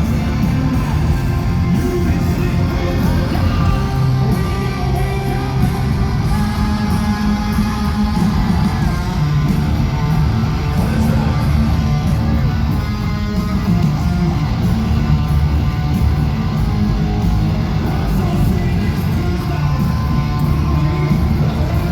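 Live rock band playing loud through a concert PA, with heavy distorted electric guitars, bass and drums, and the singer's voice in the mix. The recording is loud and bass-heavy.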